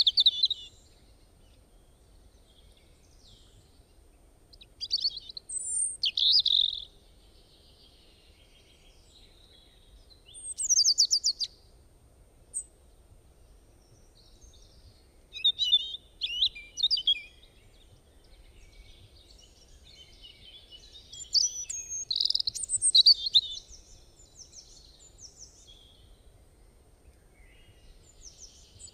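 Birds chirping and singing in short, high phrases every few seconds, with near-quiet gaps between them.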